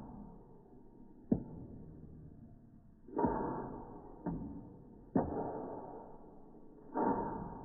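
Orange peels being tipped off a metal tray into a glass jar. The tray knocks against the jar five times, with a couple of sharp clicks and some fuller thuds.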